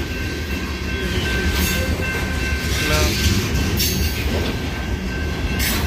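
Freight train boxcars rolling past close by: a steady rumble of wheels on rail, with a thin, steady high whine from the wheels. Sharp clacks come about every two seconds as the wheel sets pass.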